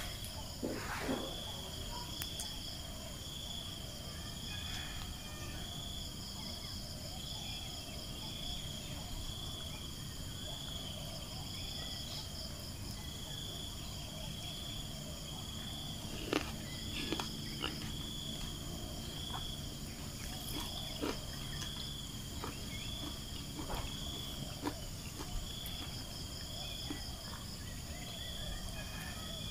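Insects chirring steadily in the background, a high, evenly pulsing trill. A few light clicks come in about halfway through and again a little later.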